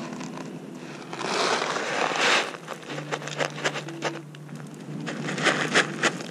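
Dry cat kibble shaken out of a cardboard box onto concrete pavement: a rustle of the box being handled, then from about three seconds in a run of quick small clicks and rattles as the pellets hit the ground.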